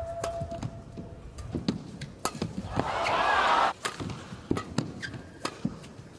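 Badminton rackets striking a shuttlecock, a series of sharp cracks, with court shoes squeaking, one long squeak at the start. Midway a short burst of crowd cheering marks the end of a point, then the strikes start again.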